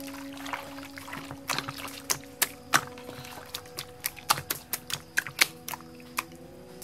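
Wet squelching and smacking of hands kneading and tossing sliced beef in a sticky marinade in a metal bowl, in quick irregular squishes that come thickest in the middle, over soft background music with steady held tones.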